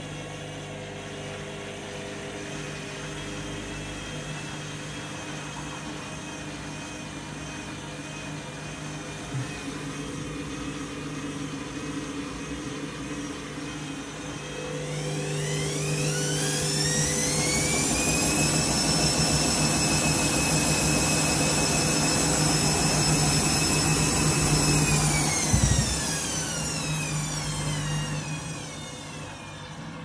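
Front-loading washing machine running with a steady low hum. About halfway through, the drum motor speeds up with a rising whine, holds at speed for several seconds, then winds back down, with a single knock just before it slows.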